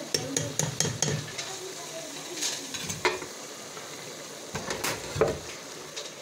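Chicken karahi sizzling in an aluminium pot while a spoon stirs it, with sharp clicks and scrapes of the spoon against the pot, a cluster of them in the first second and a few more later.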